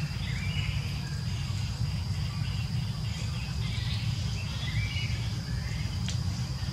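Outdoor ambience: a steady high insect drone, short chirping calls coming and going, and a low rumble underneath. One sharp click about six seconds in.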